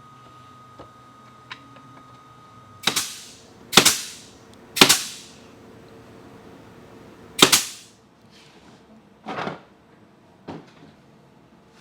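Staple gun firing staples into wooden beehive frame parts: four sharp shots over about five seconds, then two softer knocks.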